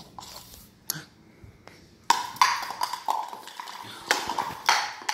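A hard plastic toy cup knocking and scraping across a hard floor as a puppy plays with it: one tap about a second in, then from about two seconds in a rough, rattling scrape with a ringing note, coming and going in several bursts.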